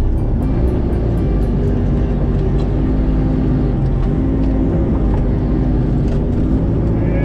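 Sherp ATV's diesel engine running steadily under load as the machine pushes through brush and small trees, heard from inside the cab, with a deep rumble and a few faint cracks from branches against the body.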